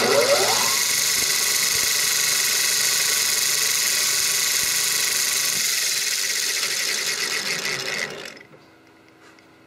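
A metal lathe spinning a pair of meshed 3D-printed plastic bevel gears at high speed. It is a high mechanical whine that rises in pitch as it spins up over the first second, holds steady, then winds down and stops about eight seconds in.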